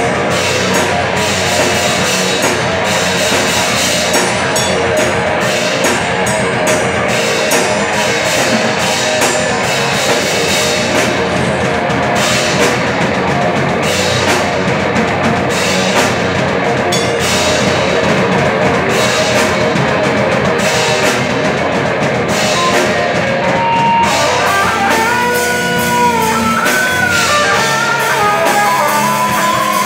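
Heavy metal band playing live: distorted electric guitars, electric bass and drum kit. Near the end a lead guitar line with bent notes stands out over the band.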